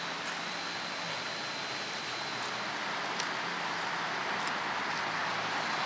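Steady outdoor background hiss, even and unchanging, with a few faint light clicks.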